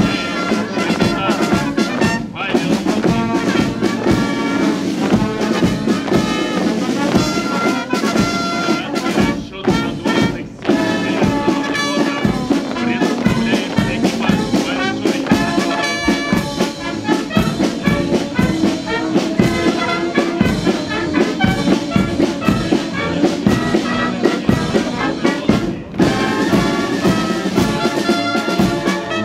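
Military brass band playing a march, with trumpets and trombones over a steady beat.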